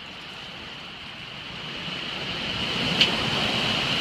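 Hurricane wind and heavy rain: a steady rushing hiss that builds louder over the first three seconds, with gusts rumbling on the microphone and a single sharp click about three seconds in.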